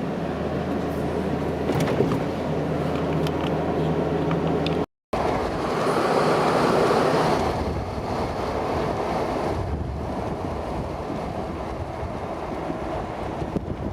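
Road noise inside a moving car: a steady low engine and tyre hum. About five seconds in the sound cuts out for a moment, then a broader rush of wind and tyre noise swells and slowly fades.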